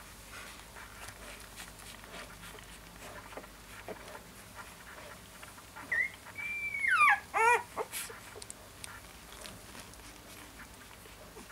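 Young Siberian Husky puppy whimpering in its sleep: a short high squeak about six seconds in, then a longer high whine that drops in pitch, followed by two quick squeaks.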